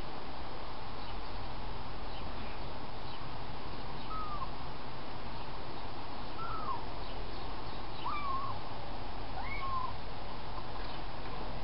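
A young kitten mewing: about four short, high-pitched calls, each bending up and back down, spaced a second or two apart over a steady background hiss.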